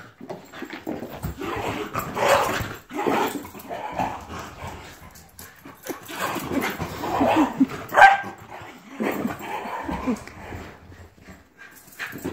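Two dogs, a small black-and-tan dog and a large white dog, playing and barking in short irregular bursts, with one loud sharp bark about eight seconds in.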